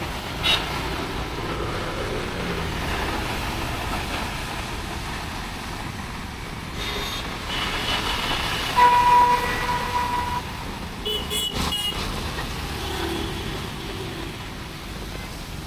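Rainy city street: a steady wash of rain and passing traffic, with a vehicle horn sounding one steady note for about a second and a half near the middle. A few shorter, higher horn toots follow about two seconds later.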